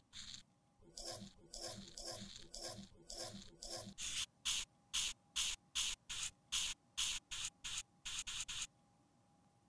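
A tool scraping and crushing pressed face powder in a compact, in a run of short scratchy strokes, about three a second. The first strokes are grittier, the later ones sharper and hissier, and they stop shortly before the end.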